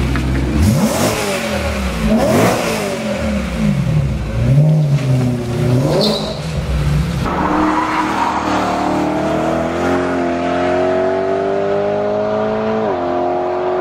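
BMW M3 GTS V8 with an Akrapovic exhaust: a few sharp throttle blips, then the car pulls away, the engine note climbing steadily through a gear until an upshift near the end.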